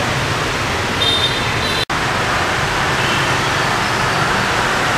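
Steady city street traffic noise, a continuous hiss and low rumble of passing motorbikes and cars, with a brief sharp drop-out about two seconds in.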